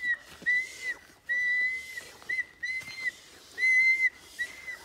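A high, steady whistle tone sounding in about seven separate notes, from short blips to notes held about half a second, at irregular intervals.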